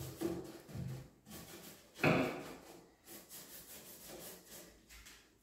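Paintbrush bristles brushing chalk paint onto bare wood in a run of short strokes, with a wooden knock at the start and a louder knock about two seconds in from the hinged wooden lid being handled.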